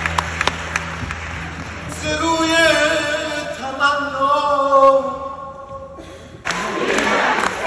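Scattered audience clapping, then a man sings a long, wavering phrase a cappella, unaccompanied, that fades away; about six and a half seconds in, the audience breaks into cheering and applause.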